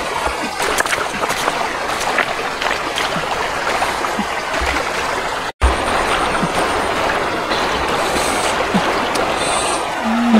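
Steady rush of running water, like a stream, with small splashes. It cuts out for an instant a little past halfway.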